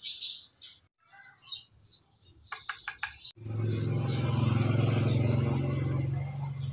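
Birds chirping in short high calls, then about three seconds in a loud, steady motor hum starts suddenly and keeps running.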